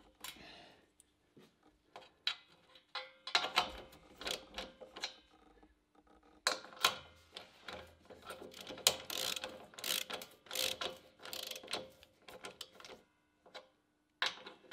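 Hand ratchet wrench clicking in quick runs with short pauses as it drives in the M8 bolts holding an air suspension reservoir to its mounting bracket.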